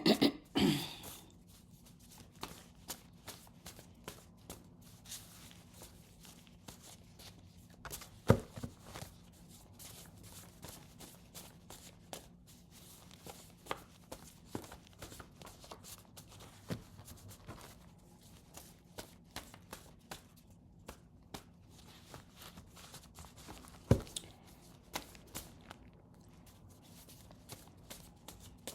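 A deck of cards being shuffled and handled by hand: scattered soft flicks, rustles and taps, with two sharper taps, one about eight seconds in and one near twenty-four seconds.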